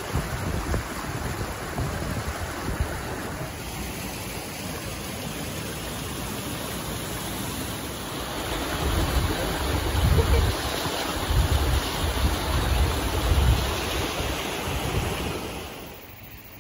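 Water rushing and splashing over rocks at the lip of a rock-pool cascade, a steady hiss, with gusts of wind buffeting the microphone in the middle; the sound drops away sharply near the end.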